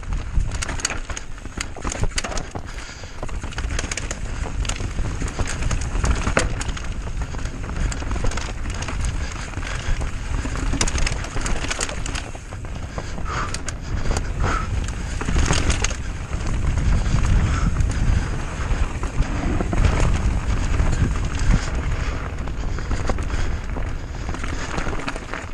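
Mountain bike riding fast down a dirt enduro trail: tyres rolling over the rough ground with a steady low rumble, and the bike clattering and rattling over bumps throughout.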